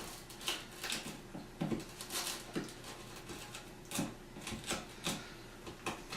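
Irregular light knocks, taps and short scrapes of hand tools working a door jamb, paring out the recess for a new strike plate.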